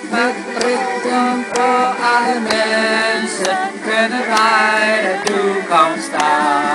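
A man and a woman singing a song in Dutch together, holding long notes, with a regular beat about once a second.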